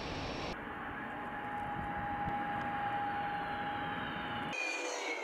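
Fighter jet engines: a steady rush of jet noise that changes abruptly about half a second in to a steady high whine over the roar, then changes again near the end to whines falling in pitch.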